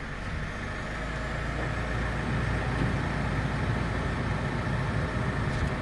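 Steady cabin noise of a Mitsubishi Pajero Sport idling with its air-conditioning blower running: a low engine hum under a rushing fan, growing louder over the first two seconds and then holding steady.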